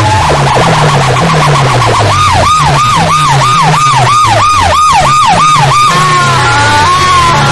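A DJ sound system plays loudly through a tall stack of horn loudspeakers. A siren-like effect warbles rapidly, then swoops downward about three times a second, then wavers more slowly, over a repeating bass line.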